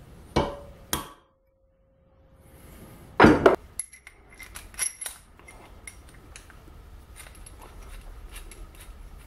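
Two sharp metallic snaps from a centre punch marking the centre of a steel anchor sleeve clamped in a bench vise; the first leaves a short ringing tone. After a brief gap, a loud metal clank about three seconds in is followed by a scatter of light metallic clinks as a steel drill chuck and a threaded rod are handled.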